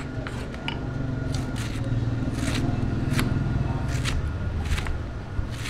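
Large knife chopping cabbage on a round wooden chopping block: sharp chops at an uneven pace of roughly one a second. A steady low rumble runs underneath and swells in the middle.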